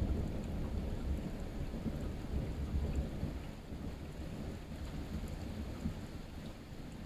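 Rolling thunder: a long, deep rumble, loudest at the start and slowly dying away.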